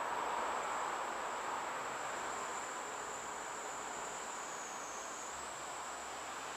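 Steady hiss of static from a Baofeng UV-3R handheld radio's speaker while nothing is heard on the ISS downlink, with a thin steady high whine above it that dips briefly about five seconds in.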